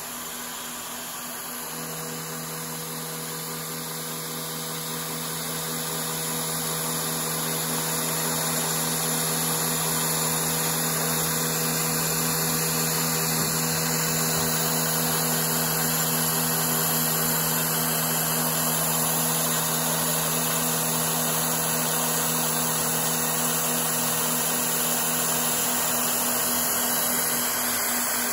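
End mill on a CNC knee mill cutting aluminum plate under a coolant mist spray. A steady whine of the spindle and cut sits over a constant spray hiss. The whine comes in about two seconds in, and the sound grows louder over the first several seconds, then holds steady.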